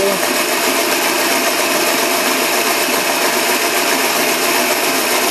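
Bench test rig running: a DC drive motor spinning a three-phase AC induction motor, wired as a generator, through a temporary roller chain. The noise is steady, while the drive motor's voltage is being turned up with the variac.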